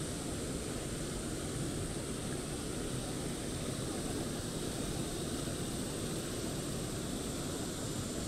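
Shallow river running over rocks and riffles: a steady rushing of water.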